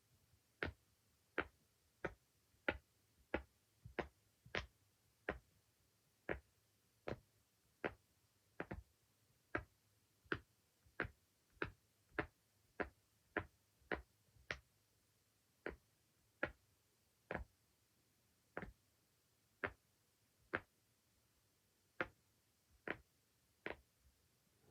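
Silicone pop-it fidget toy being pressed bubble by bubble: a steady series of sharp little pops, about one every three-quarters of a second, with a few coming in quick pairs.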